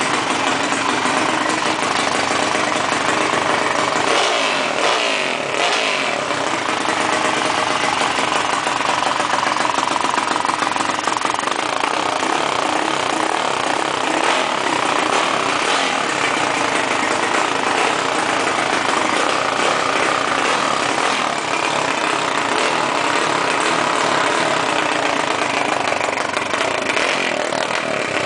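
Honda CG motorcycle's pushrod single-cylinder engine, bored out with a 76 mm piston, running steadily through a Box103 exhaust, with a couple of throttle blips about four to six seconds in.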